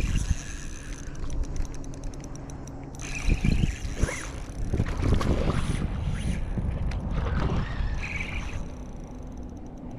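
Water splashing as a hooked redfish thrashes at the surface of shallow water, heaviest through the middle of the fight.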